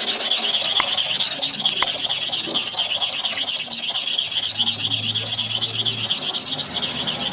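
Hair clipper blade being rubbed back and forth by hand on an abrasive surface, a rapid, steady run of scraping strokes as the blade is sharpened and polished.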